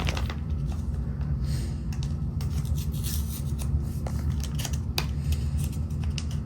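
Hands handling small objects at close range: scattered light clicks and rubbing over a steady low hum.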